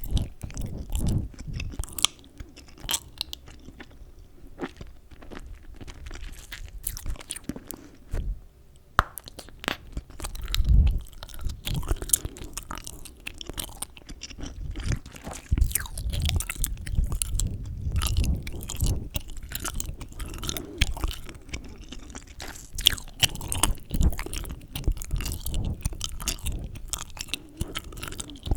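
Chewing gum close to the microphone: a dense, irregular run of wet mouth clicks and smacks over soft low thuds of the jaw.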